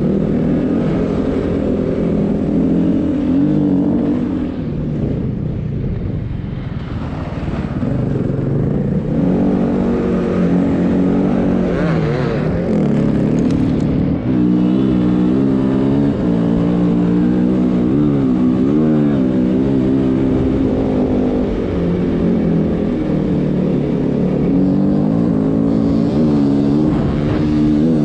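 Snowbike engine (a dirt motorcycle fitted with a track and front ski) running loudly under way, its pitch rising and falling with the throttle. It eases off briefly around six seconds in, then picks up again.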